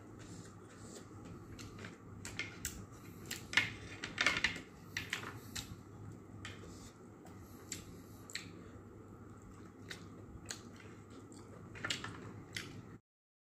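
Close-up eating sounds as steamed clams are picked from their shells by hand and eaten: scattered short clicks and chewing noises over a faint steady background hum. The sound cuts off abruptly shortly before the end.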